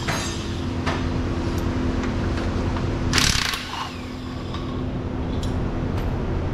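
Mechanic's tool work on a pickup's transmission: a short, loud whirring burst from a power tool about three seconds in, over a steady mechanical hum.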